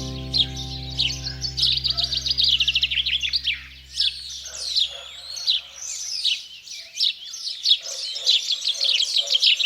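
Small songbirds chirping and twittering, several at once, with a fast trill about two seconds in and quick sweeping calls around the middle. Soft background music of held notes fades out during the first half.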